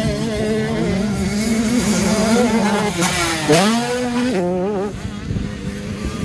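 85cc two-stroke motocross bike engines racing, revving up and down with the throttle. About three and a half seconds in, one engine's pitch dips sharply and climbs again at its loudest as a rider goes over a jump; the engine noise eases off near the end.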